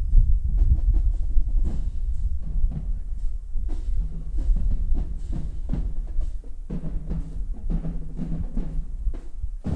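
Marching band drum section playing a cadence, with heavy bass drum beats and snare strokes. Low held tones join in about two-thirds of the way through.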